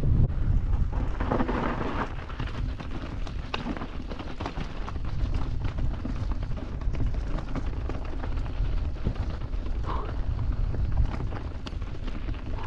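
Enduro mountain bike riding downhill over a stony dirt trail: tyres crunching on loose rock and the bike rattling with frequent sharp clicks, over a steady low rumble.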